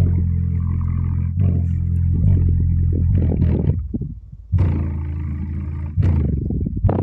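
Sundown Audio LCS subwoofer playing loud, deep bass notes at high excursion, the cone pumping hard. The bass drops out briefly about four seconds in, then comes back.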